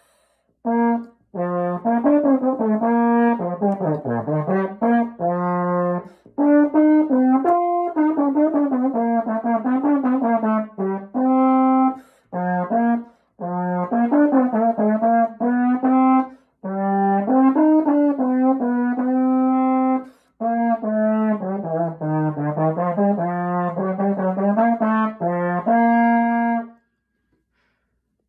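Unaccompanied trombone playing a solo melody in phrases separated by short breathing pauses, its notes dipping low and climbing again; the playing stops near the end.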